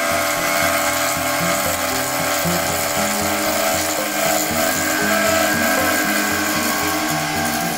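Narrow lathe tool cutting into a blue-and-black wood umbrella handle spinning on a wood lathe: a steady scraping cut, with background music underneath.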